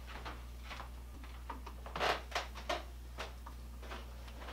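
Faint clicks and rattles of hands handling a Toro chainsaw whose chain has come loose, with a small cluster of them about two seconds in, over a steady low hum.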